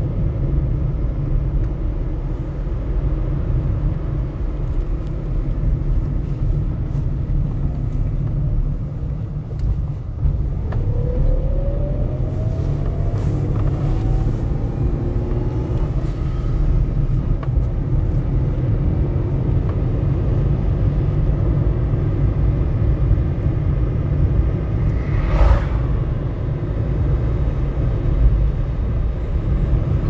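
Car driving slowly on a paved road: a steady low rumble of engine and tyre noise, with one short sharp knock near the end.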